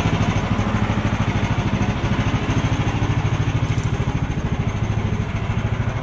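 Woodland Mills HM130 portable sawmill's small gasoline engine idling steadily between cuts, a fast even putter with no cutting load.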